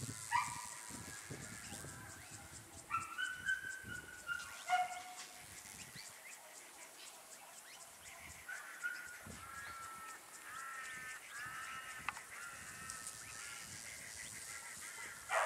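Repeated honking animal calls: several pitched cries near the start and from about three to five seconds in, then a run of shorter calls from about eight to twelve seconds.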